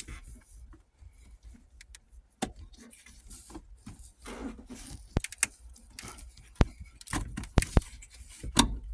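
Scattered sharp clicks, taps and light rattles of hands working plastic parts and wiring around a car's shifter assembly, pushing a part down into its place, with a quick cluster of clicks in the last couple of seconds.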